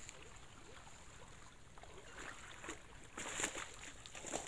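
Shallow swamp water splashing a few times, the loudest splash about three and a half seconds in.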